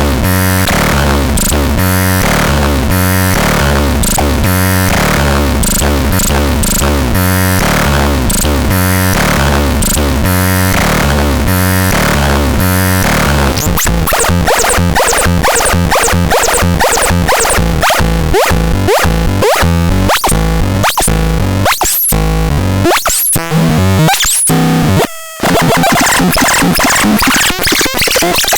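Noisy electronic sounds from the AZGAD M36 synthesizer: a repeating stepped bass pattern under a buzzy haze. About halfway through it changes to fast glitchy clicks and sliding pitch sweeps, briefly dropping out near the end.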